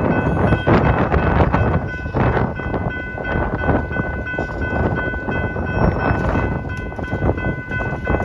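BNSF freight locomotive horn held in one long steady chord, over the rumble of the train and gusty wind buffeting the microphone.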